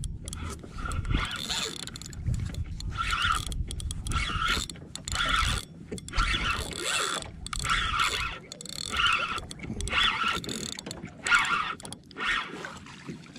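Spinning reel being cranked to wind in a hooked fish, a rhythmic mechanical whirr that pulses about once or twice a second with the turns of the handle.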